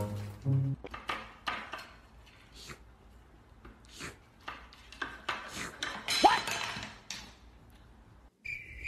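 Scattered light clinks and knocks, like dishes or small hard objects being handled, with a brief high squeak about six seconds in.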